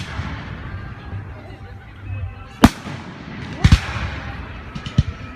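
Aerial fireworks shells bursting in sharp bangs at irregular intervals: one at the start, one about two and a half seconds in, a quick double a second later, and another near five seconds, with a few small crackles just before it.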